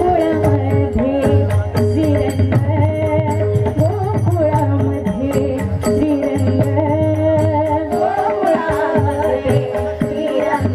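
Women singing a Marathi gavalan devotional song, lead voice and chorus, over a harmonium and a steady percussion beat.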